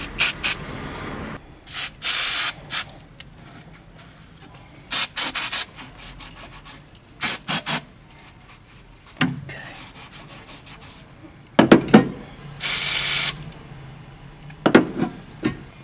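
Aerosol brake cleaner sprayed from a can in about four short hissing bursts, with rag wiping and a few light knocks of handling in between.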